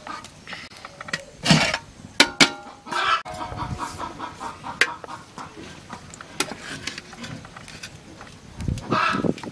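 Aluminium cooking pots and lid being handled: cloth rustling as it comes off the pot, and a series of sharp metal knocks and clinks, some ringing briefly. Hens cluck faintly in the background.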